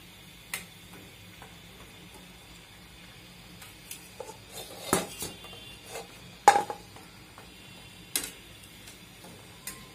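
Metal utensils clinking against an aluminium karahi as a flower-pitha mould and spatula work in hot oil: scattered sharp clinks, the loudest about six and a half seconds in with a brief metallic ring. A faint sizzle of frying oil lies underneath.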